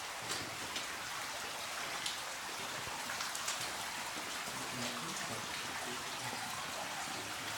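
Steady hiss of water running through a cave, with a few sharp drips scattered through it.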